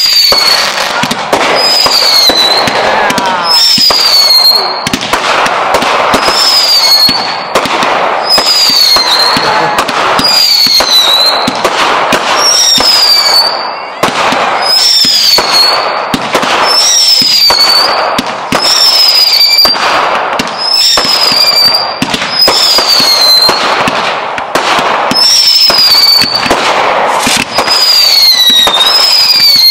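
Fireworks display going off in a rapid, continuous barrage of bangs and crackling. A short whistle that falls in pitch repeats about once a second over it.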